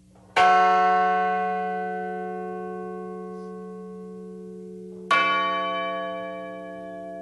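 A remembrance bell struck twice, about five seconds apart, each strike ringing out with many overtones and fading slowly, tolled for one victim just after their name is read.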